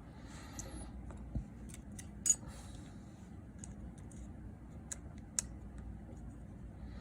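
Small metal shield plates and a tiny screwdriver clicking and tapping on an opened iPhone 6s Plus as the plates are fitted back over the board: a handful of sharp, scattered clicks, the loudest about two seconds in, with light scraping near the start.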